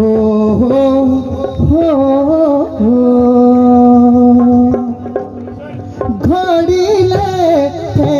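Live folk music: a male voice sings long, bending held notes over a dhol drum beat.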